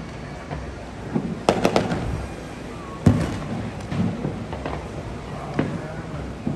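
Fireworks going off: a quick cluster of bangs about a second and a half in, the loudest single bang about three seconds in, then scattered, spaced bangs, each trailing off in an echo.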